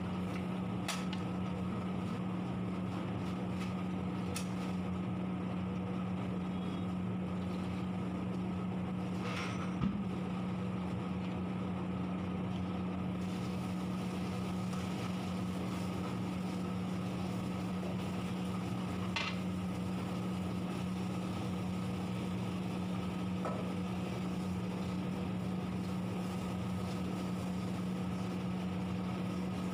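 Steady mechanical hum of constant pitch. Over it come a few light clicks and knocks of the steel ladle against the large kadhai as the curry is stirred; the sharpest is about ten seconds in.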